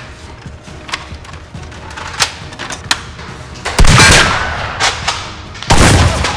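Two loud gunshot-like blasts, sound effects dubbed over toy Nerf blasters firing, about four and six seconds in, each lasting about half a second. A few sharp clicks come before them.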